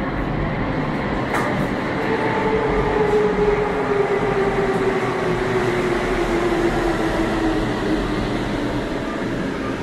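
Santiago Metro Line 1 rubber-tyred train slowing into the station: a steady rumble with a motor whine that falls slowly in pitch.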